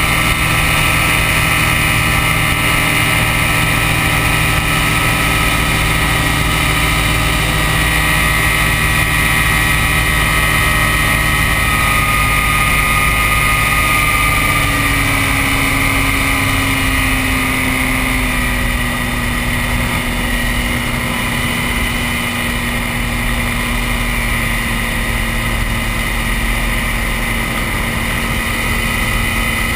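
Ultralight aircraft's engine and propeller running steadily, heard from the open cockpit with air rushing past. Past the middle the engine note shifts lower and the sound eases a little as the plane descends to land.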